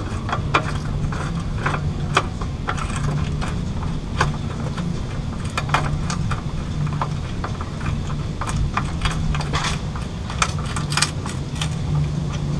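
Hand ratchet clicking in irregular runs as the frame-support bolts are run in, with metallic clinks of the socket and bolt, over a steady low hum.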